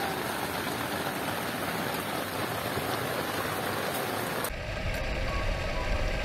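Heavy rain drumming steadily on rooftop tent fabric, a dense even hiss. About four and a half seconds in it cuts abruptly to a deeper rumble with a few faint short tones.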